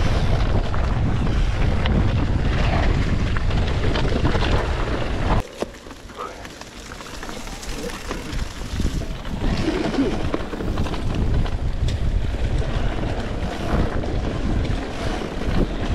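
Wind buffeting the microphone over the rumble of a mountain bike's tyres and frame on a dirt downhill trail. The noise drops sharply about five seconds in, then builds back up over the next few seconds.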